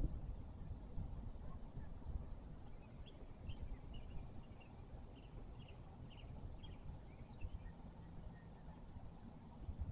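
Rural outdoor ambience: a low rumble of wind on the microphone under a steady high insect drone, with a quick run of short high chirps from about three to seven and a half seconds in.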